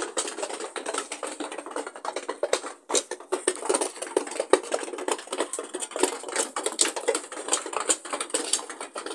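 Rapid, irregular clicking and tapping: many small, sharp taps in quick succession, with a brief pause about three seconds in.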